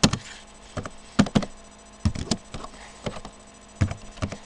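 Keys being typed on a computer keyboard: about ten sharp clicks at an uneven pace as a short name is typed.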